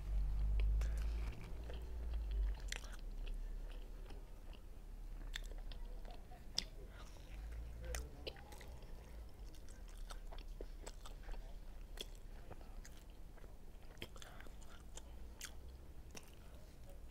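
Close-miked chewing and biting of Adjarian khachapuri: irregular wet mouth clicks and smacks from a person eating, with a low rumble in the first couple of seconds.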